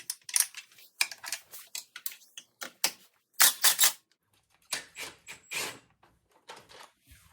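Hand tools working the last subframe bolt on a Kawasaki ZX-6R motorcycle frame: irregular metallic clicks and clinks, with a loud quick run of clicks about three and a half seconds in.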